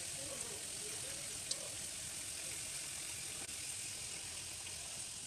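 Low, steady background hiss of room noise, with one faint click about a second and a half in.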